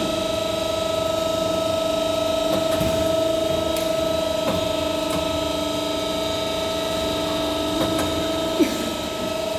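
CNC busbar processing machine running with a steady whine, a few light clicks, and one sharp knock near the end.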